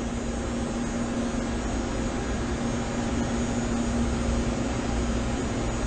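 Steady machinery hum with a low rumble and one constant droning tone, unchanging throughout.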